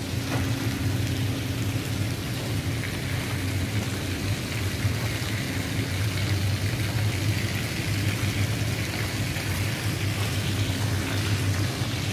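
Steady low drone of a ship's running machinery under a constant hiss.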